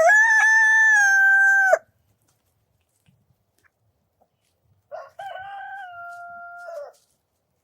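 Two rooster crows: a loud, close crow lasting almost two seconds, then after a pause of about three seconds a fainter, more distant crow of about two seconds.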